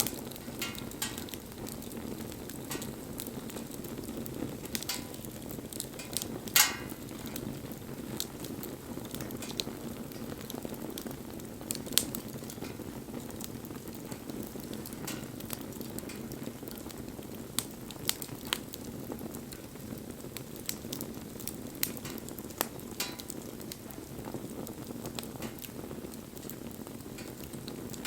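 Wood campfire burning: a steady low rush of flame with frequent sharp crackles and pops from the burning wood. There is a louder pop about six and a half seconds in and another around twelve seconds.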